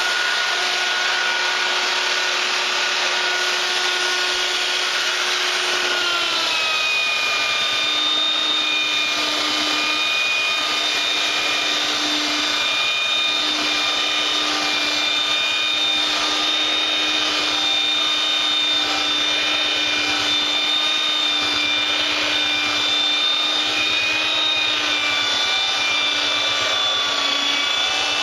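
Electric sander running steadily against the wood of a cutting board, a motor whine over sanding hiss; its pitch drops slightly about six seconds in as it takes more load.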